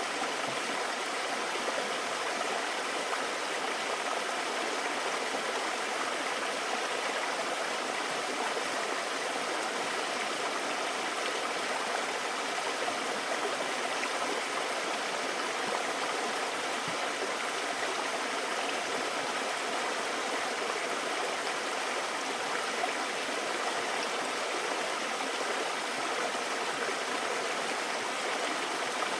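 Mountain stream water rushing and splashing over rocks, a steady even rush.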